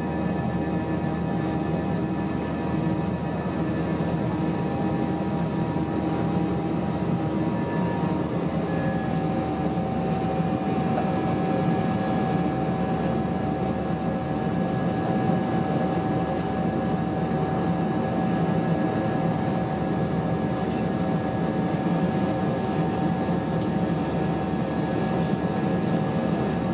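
Airbus A320-232 cabin noise heard from a window seat in flight: a steady roar of airflow and the IAE V2500 turbofan engines, with steady engine tones running through it. About eight seconds in, one tone drops out and a slightly lower one grows stronger.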